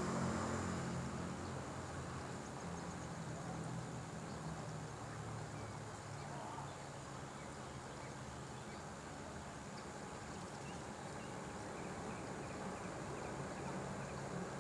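Quiet outdoor ambience: faint scattered bird chirps and insects over a low, steady hum.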